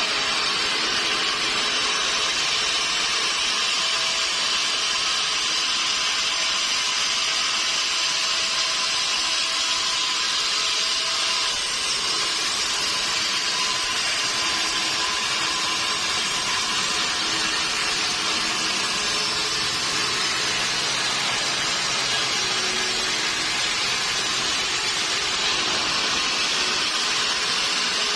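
Sawmill saw cutting steadily through a log: a continuous, unbroken hiss of the blade in the wood.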